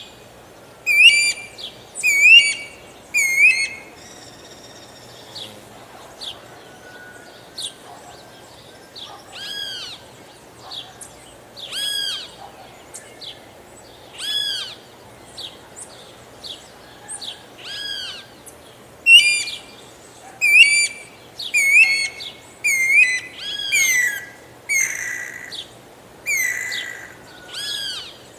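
Guira cuckoo (anu-branco) calling: a series of loud, arched whistled notes. A quick cluster comes at the start, then single notes about two seconds apart, then a faster run of notes near the end.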